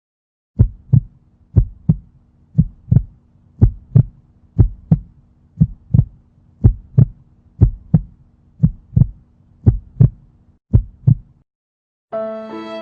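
Heartbeat sound effect: paired low thumps (lub-dub), about one beat a second, over a faint steady hum. It stops near the end, and a violin music cue begins.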